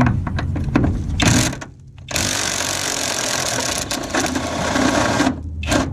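Impact wrench hammering on a 24 mm bolt: a short run of rapid blows, a brief pause, then a longer run of about three seconds, with a short burst near the end.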